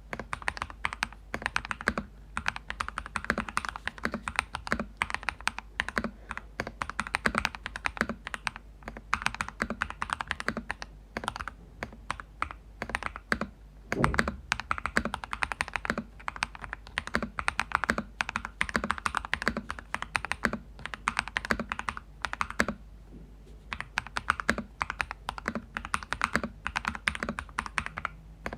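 Fast continuous typing on a Cheap60 EX 60% mechanical keyboard with lubed Crystal Red switches, a firm, thocky clack of keys bottoming out, its PC plate taped underneath and a plastic sheet in place of foam. One heavier knock comes about halfway through, and the typing stops for about a second about three quarters of the way in.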